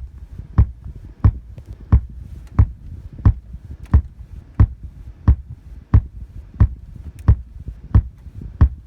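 Car audio speakers in a 2014 VW Passat thumping in a steady rhythm, about one and a half thumps a second, over a low hum. It is an audio-system fault that shows on startup, which the uploader thinks a VW technical service bulletin (TSB 2031434) might mitigate.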